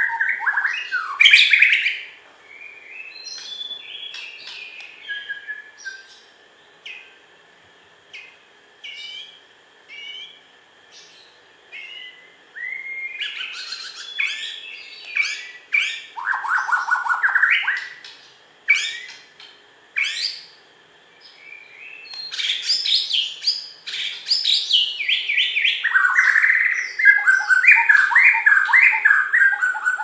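White-rumped shama (Bornean murai batu) singing in varied bursts of clear whistles, chirps and fast runs of repeated notes, with short pauses between phrases. The song is loudest a couple of seconds in, again from about the middle, and through the last several seconds.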